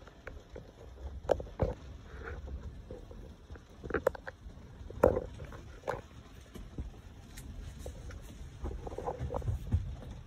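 Handling noise from a phone camera rubbing and knocking against a leather car seat: a low rumble with scattered short knocks and rustles, the sharpest a little after one, four, five and six seconds in.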